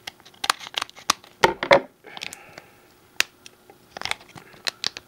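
A trading-card booster pack's wrapper being cut and torn open by hand, crinkling in quick sharp crackles. There is a dense burst about a second and a half in and more crinkling from about four seconds on.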